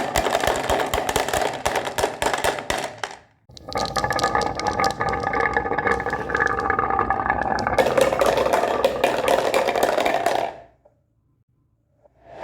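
Marbles rolling and clattering along a marble run, a dense run of clicks with a ringing whir. The sound cuts out briefly about three seconds in, and again for over a second near the end.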